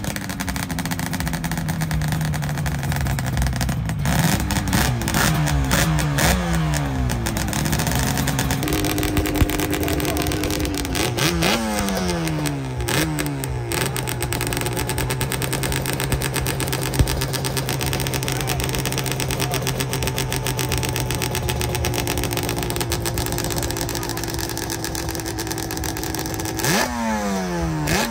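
Motorcycle engines running, their pitch rising and falling with the throttle in the first half. One engine then holds a steady note for about thirteen seconds before revving up sharply near the end.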